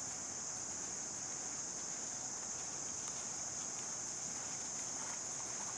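Steady, high-pitched drone of an insect chorus, with faint hoofbeats of a horse cantering on sand coming in near the end.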